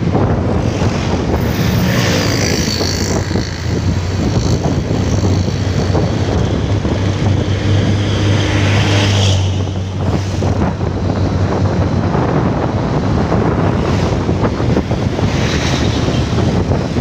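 Heavy wind noise buffeting the microphone of a moving motorcycle, over the steady low drone of its engine and road noise. The noise swells as an oncoming truck passes close, then drops away about nine seconds in.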